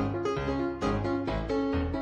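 Background music: a keyboard instrument with a piano-like sound playing a run of struck notes, a new note every quarter to half second.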